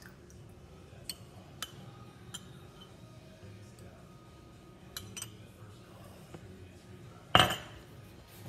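Metal spoon clinking lightly against a ceramic cup a few times while stirring and lifting a thick mixture, then one loud knock near the end.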